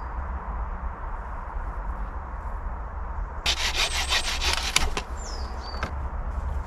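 Japanese pull-saw cutting through a thin wooden pole: a quick, even run of saw strokes that starts about halfway through and lasts about a second and a half.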